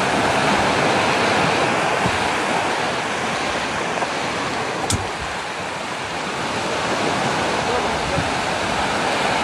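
Steady wash of surf breaking on a sandy shore, with one short sharp click about five seconds in.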